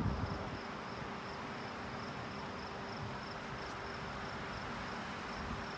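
Crickets chirping in a steady, even rhythm of about four chirps a second, with a faint steady hum underneath.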